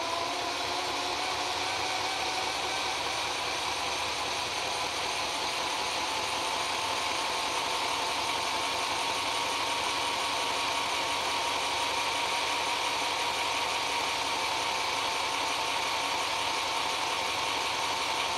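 Bachmann 2-4-2T Lyn large-scale model steam locomotive's electric motor and gears whirring as it runs at speed on test rollers. The whine rises in pitch over the first few seconds as the power is turned up from about 14 to 18 volts, then holds steady.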